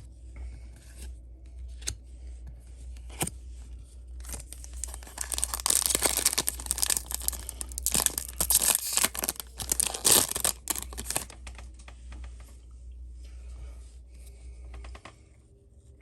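A Yu-Gi-Oh booster pack wrapper being torn open and crinkled in the hand: a dense crackling stretch of about seven seconds in the middle, with lighter rustling and a few clicks before and after.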